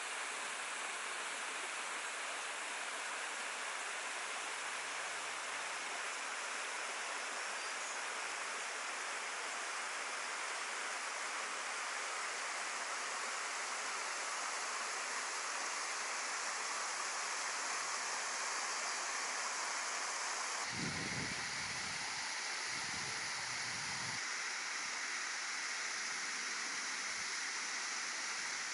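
Creek water rushing over rock ledges and a small waterfall splashing down into a pool, a steady, even rush of running water. About three-quarters of the way through the sound changes character, with a few brief low rumbles.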